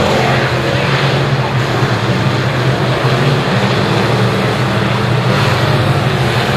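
Several B-Mod dirt-track race cars' V8 engines running at low, steady revs as the cars circle slowly under caution.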